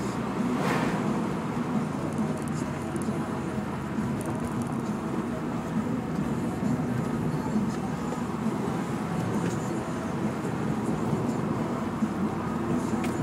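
Renault Mégane RS225 driving uphill, heard from inside the cabin: a steady engine drone under load with tyre and road noise, and faint scattered ticks on top.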